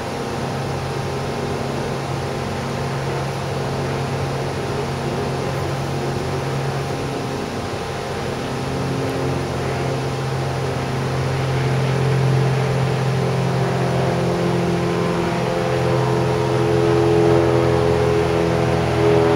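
Steady engine drone with several held humming tones, growing louder in the last few seconds.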